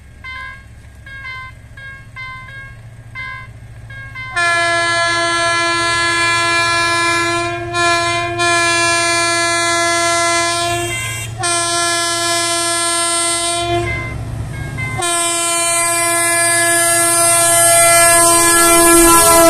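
Level-crossing warning bell sounding in a repeating electronic ding about twice a second. About four seconds in, the approaching TCDD DE 33000-class diesel locomotive's multi-tone air horn blows in greeting: four long blasts with short breaks, the last still going at the end, over the low rumble of the locomotive drawing closer.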